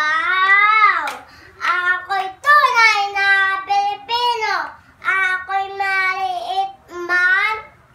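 A young girl reciting a poem in Filipino in a drawn-out, sing-song declamation, her high voice rising and falling in long phrases with short pauses between lines.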